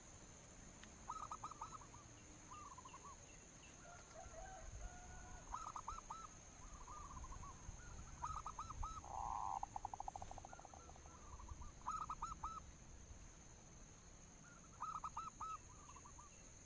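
Zebra doves cooing: short rippling phrases of quick notes, repeated every few seconds, with one longer rapid trill about nine seconds in.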